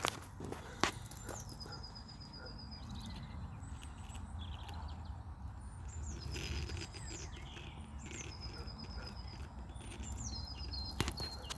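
A small songbird singing a short, high trilled phrase, each one opening with a downward slur, about four times over, over a steady low rumble of wind or handling noise. A couple of sharp clicks come near the start and at the end.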